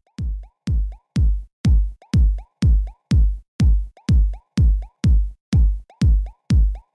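Electronic dance music with a heavy kick drum on every beat, about two beats a second, each beat followed by a short rising blip.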